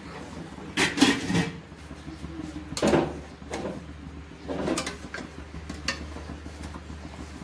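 Metal spatula scraping and knocking against a stainless steel pan as rice is spread over curry, in several separate strokes, loudest about a second in and again near three seconds. A low steady hum runs underneath.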